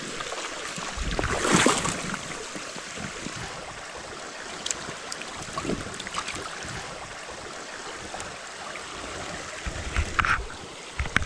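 Small spring creek flowing steadily, with a brief louder burst about a second and a half in and a few knocks near the end.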